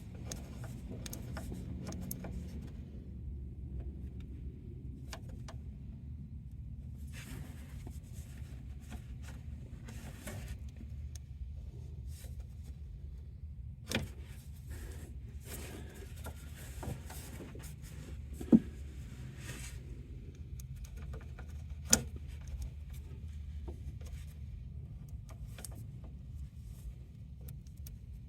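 Faint scraping and metal clinks from turning the threaded adjuster on a Kawasaki Teryx parking brake cable, with three sharp clicks in the second half, over a steady low hum.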